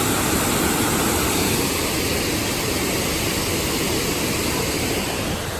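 Turtleback Falls, a waterfall, rushing steadily and loudly as water pours over the rock.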